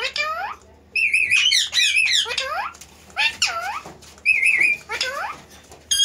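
Rose-ringed (Indian ringneck) parakeets vocalizing: a run of short, high warbling calls and squeaky whistles, some with a fast wavering trill, broken by brief pauses.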